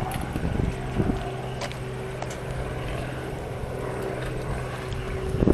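An engine running steadily: a low drone with a steady higher hum over it, and a couple of short knocks near the start and about a second in.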